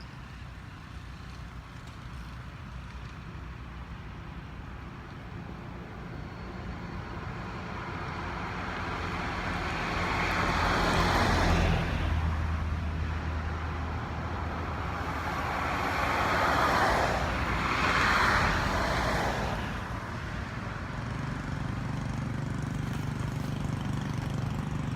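Motor vehicles passing by, two swelling and fading pass-bys over a steady low traffic rumble, loudest about ten seconds in and again near eighteen seconds.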